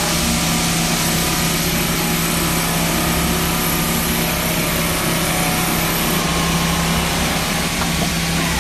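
CNC lathe running while it turns brass bar stock: steady machine noise with a low spindle hum that stops near the end.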